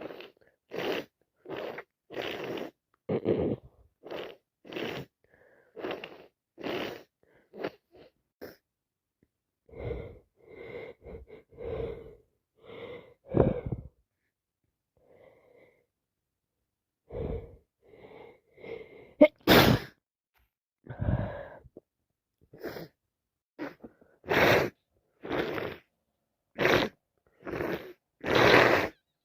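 A person with a heavy head cold sniffing repeatedly through a blocked nose, short noisy sniffs one or two a second with a brief pause midway. There is one loud, sharp sneeze about two-thirds of the way through.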